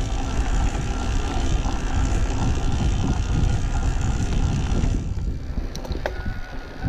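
Electric mountain bike climbing a steep gravel road under pedal assist: a steady motor whine over wind on the microphone and tyre noise on the gravel. The hiss thins about five seconds in, and a couple of sharp clicks come near the end.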